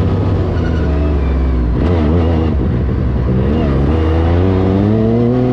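Yamaha YXZ1000R side-by-side's three-cylinder engine running under throttle. Its pitch dips twice, as with a gear change or lift-off, then rises steadily near the end.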